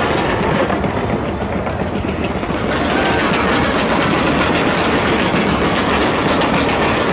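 A fireworks barrage firing without a break: a dense, steady rush of crackling and popping made of countless small reports.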